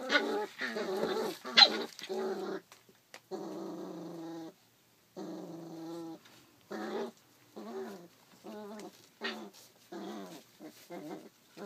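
33-day-old rough collie puppies growling as they play-fight: a string of high, pitched puppy growls and sharper cries. It is loudest and busiest in the first two seconds, then comes in longer held growls and shorter separate bursts.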